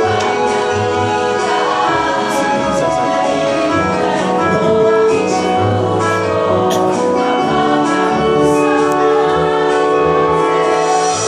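Mixed choir of men's and women's voices singing in harmony, holding sustained chords over a low bass line.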